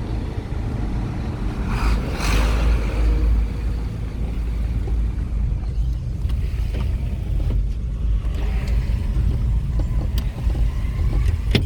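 Steady low rumble of a vehicle on the move, engine and road noise together, with a louder rush of noise about two seconds in.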